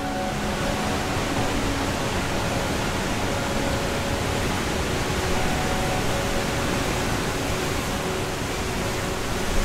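Steady rushing roar of the Banias Waterfall's water, an even noise with no breaks, with faint background music underneath.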